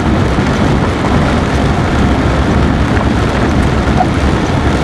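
A vehicle driving along a flooded gravel road, heard from inside: steady engine and tyre noise mixed with the hiss of water and rain.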